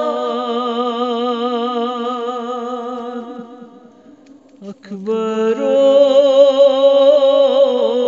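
A man's voice chanting a noha, a Shia lament, without instruments, holding long wavering notes. The first note fades away about four seconds in, and a new, louder held note begins about a second later.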